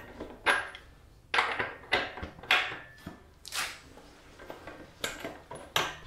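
Ratchet wrench with a 27 mm socket running off the loosened rear axle nut of a motorcycle: a series of sharp metallic clicks, irregularly spaced, about one or two a second, with a few fainter clinks between.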